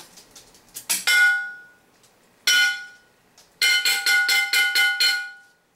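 A metal object struck hard and clanging: two single strikes, then a quick run of about eight strikes, each one ringing on with a steady tone.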